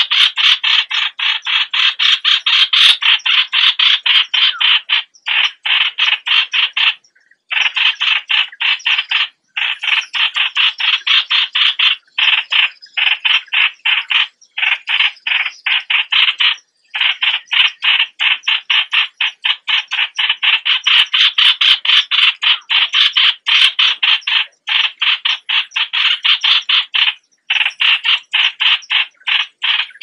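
Yellow-vented bulbul calls played as a bird-lure recording: a rapid, harsh chatter of short notes, several a second, in long runs broken by brief pauses.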